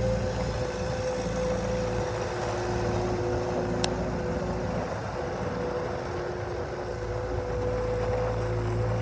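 New Holland L160 skid steer's diesel engine running steadily, with a steady high whine over the engine note and a faint click about four seconds in.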